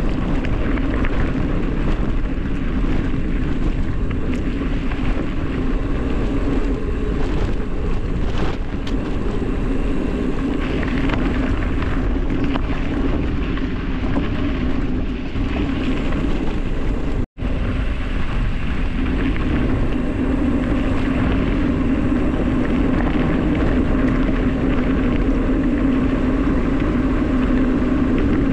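Steady rush of wind over the microphone mixed with tyres rolling on dirt and gravel at descending speed, with a steady low drone under it. The sound drops out for an instant a little past halfway.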